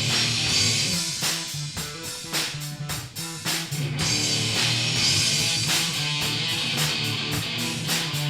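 Rock band playing live without vocals: guitar with held low notes under it and a drum kit keeping a steady beat. The band thins out briefly about two to three seconds in, then comes back in full.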